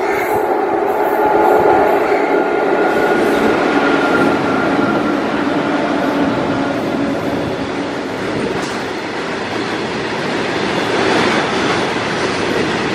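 Indian Railways WAG-7 electric locomotives hauling a freight train past: a steady, loud rumble and rattle of the locomotives and goods wagons running on the track.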